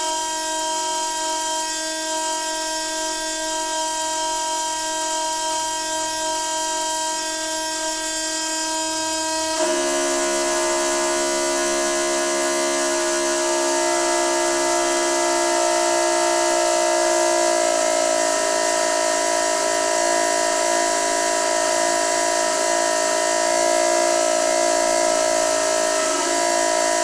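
Noisy water pipe humming, a steady drone of several held tones like a horn. About ten seconds in the tones jump abruptly to a new pitch and the hum gets slightly louder.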